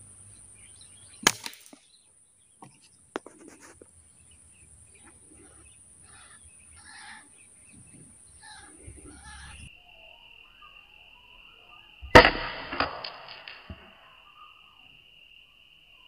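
Air rifle shots: a sharp crack about a second in, and the loudest crack about three-quarters of the way through, trailed by a short rattle lasting about a second. A small click follows the first crack, and a steady high tone in the background drops abruptly to a lower pitch a little past halfway.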